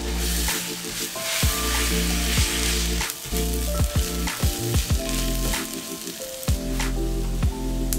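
Shallots, curry leaves and chillies with ginger-garlic paste sizzling in hot oil in a nonstick frying pan while a spatula stirs them, knocking and scraping against the pan now and then. The paste is being sautéed until its raw smell goes.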